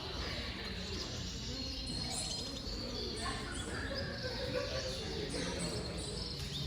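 Canaries chirping and calling: many short, quick, overlapping notes.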